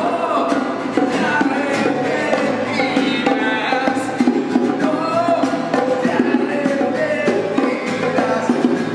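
Acoustic rock played live: two steel-string acoustic guitars strummed with a pair of bongos tapped by hand, and a man singing over them.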